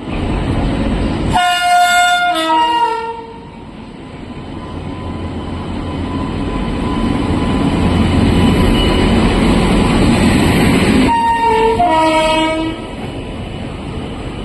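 Indian Railways train horn sounding twice, about nine seconds apart, each blast a couple of seconds long with its pitch stepping between several tones. Between the blasts the train's running rumble grows louder, then drops off after the second blast.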